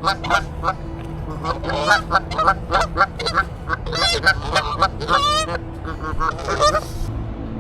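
Geese honking repeatedly: a busy series of short, harsh calls that stops near the end.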